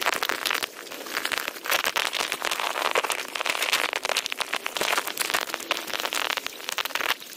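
Footsteps splashing through a shallow brook, with water running and spattering over the stream bed in uneven surges.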